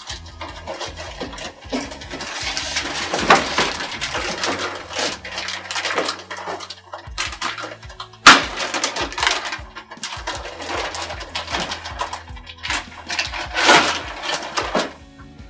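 Plastic packing bag crinkling and rustling in bursts as a bagged network switch is handled and lifted out of foam and cardboard packaging, with one sharp knock about eight seconds in.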